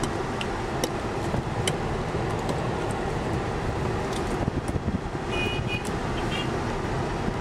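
Steady motor-vehicle and road noise, an even rumble with a few faint clicks and a couple of brief high tones a little past five seconds in.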